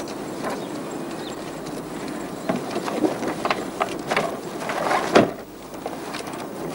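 A car door shutting with one loud thud about five seconds in, over a steady outdoor noise of street traffic, with a few smaller knocks and clicks around it.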